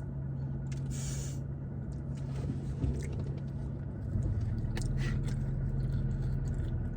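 Steady low hum inside a parked car, getting louder about four seconds in, with a brief rustle about a second in and a few small clicks and crunches of someone eating a crunchy macaron.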